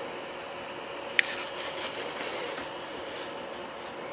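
Small 3D printer cooling fan running steadily with a faint hum, with one sharp click about a second in and a few light handling clicks after it.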